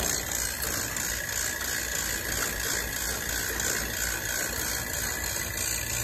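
Refrigeration vacuum pump running steadily with an even low hum, still evacuating the air-conditioning lines after an hour of pulling vacuum.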